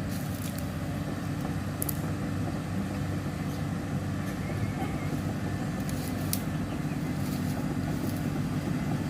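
Excavator's diesel engine running steadily, with a few short sharp cracks over it.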